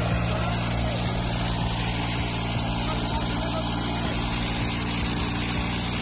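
Tractor diesel engine running steadily, a low even hum with a constant pitch.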